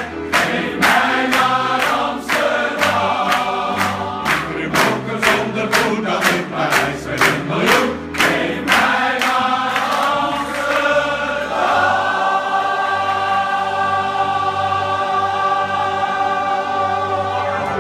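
Men's choir singing with piano accompaniment, clapping in time for the first half, then holding a long final chord to the end.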